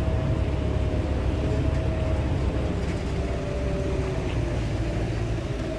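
Heavy diesel construction machinery running steadily: a low engine rumble with a faint whine above it.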